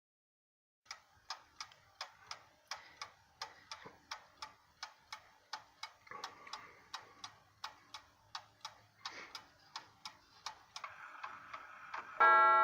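The 8-day movement of an Ansonia No. 48 Cabinet mantel clock ticking steadily, about two to three ticks a second. Near the end the strike train whirs briefly and the hammer sounds the gong once for the half hour, a loud strike that rings on.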